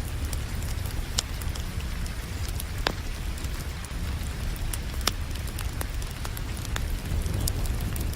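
Wood fire crackling, with scattered sharp pops over a steady low rumble, mixed with the hiss of rain.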